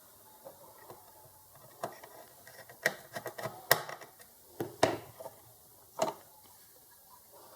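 Irregular clicks and light knocks of hands handling the gate-opener circuit board and its cable connectors, with a handful of sharper snaps between about two and six seconds in.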